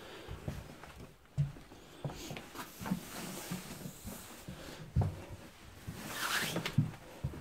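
Irregular soft footstep thuds with the rustle of a padded nylon puffer jacket rubbing near the phone's microphone. The rustle swells louder about six seconds in.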